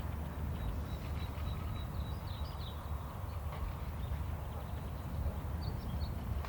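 Outdoor farm ambience: a steady low wind rumble, with a few faint high bird chirps partway through and again near the end.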